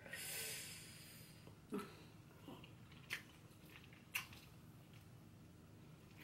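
Mouth sounds of eating a grilled chicken foot: a soft hiss at the start, then three short, sharp bites or crunches about a second apart.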